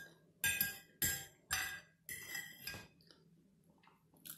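Metal fork clinking and scraping against a plate, four quick strokes about half a second apart, then a pause and one short click near the end.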